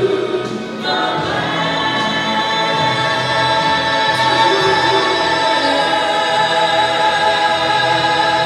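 A gospel choir and a woman soloist singing a hymn. About a second in, the voices get louder and hold a long sustained chord.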